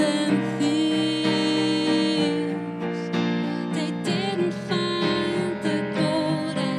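A live song: a woman singing over a Yamaha electric keyboard played as piano, with a bowed cello holding long notes underneath.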